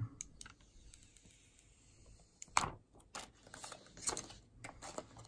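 Thin plastic protective film being peeled off a smartphone, crinkling and crackling in a few short bursts that start about two and a half seconds in.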